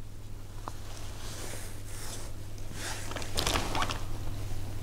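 Soft handling noises as a plastic 1/10 scale RC crawler chassis is shifted in the hands: faint rustles and a few light clicks about three and a half seconds in, over a steady low hum.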